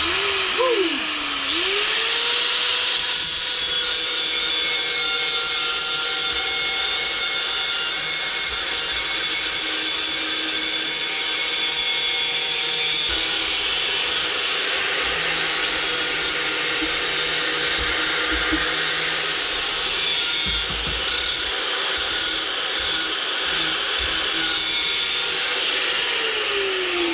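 A hand-held electric power tool spinning up, then scouring the metal of a car's suspension mount back to a shine before welding, a steady motor whine over a harsh rasping, for about 25 seconds; it winds down near the end.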